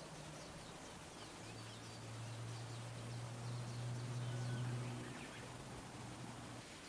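Woodland ambience: small birds giving many short, quick chirps over a steady low hum that grows louder in the middle and stops shortly before the end.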